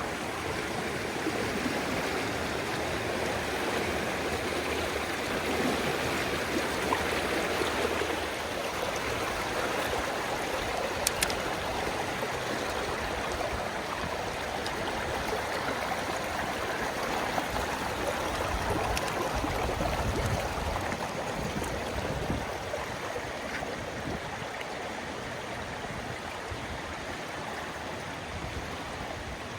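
Fast-moving floodwater rushing steadily, with a brief pair of sharp clicks about eleven seconds in.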